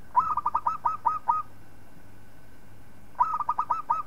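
Zebra dove (perkutut) cooing: two phrases of quick staccato coos about three seconds apart, each a fast run of short notes that slows into a few longer coos at the end.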